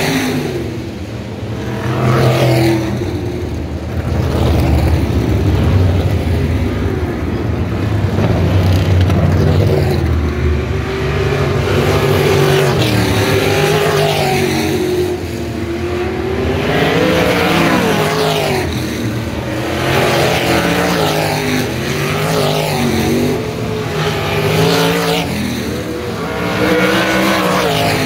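Several winged sprint car V8 engines racing together, their overlapping engine notes rising and falling in pitch as the cars come past and lap the track. The loudness swells every few seconds.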